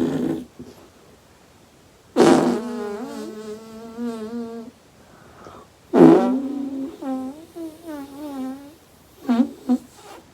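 A person's snoring sounds, drawn out into pitched, wavering tones. Two long ones each start with a rough burst, about two and six seconds in, and hold for a couple of seconds. Two short snorts follow near the end.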